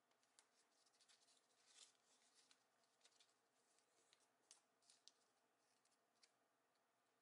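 Faint rustling and crisp crackles of patterned origami paper being folded and creased flat by hand, in irregular short bursts, the loudest about two seconds in.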